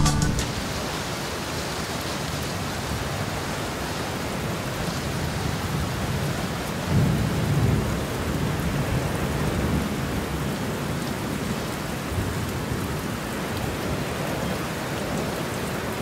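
Steady rain falling, an even hiss, with a low rumble swelling briefly about seven seconds in.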